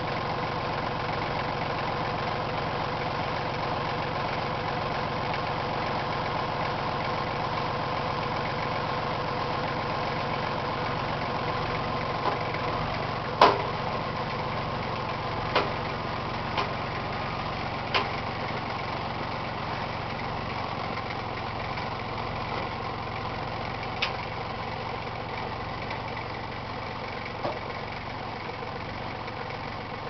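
Kubota tractor engine running steadily at low revs, with several sharp knocks over it from about the middle on, one much louder than the rest.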